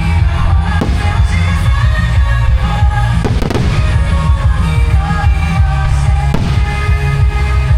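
Music playing over fireworks going off, with a deep rumble throughout. Three sharp firework bangs stand out: about a second in, a little past three seconds, and past six seconds.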